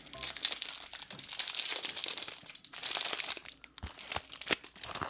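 Snack wrapper crinkling and crackling as it is handled, with many quick crackles.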